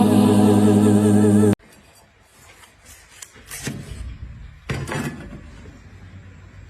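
Sung music that cuts off abruptly about a second and a half in, followed by a quiet stretch with a few short knocks and clicks.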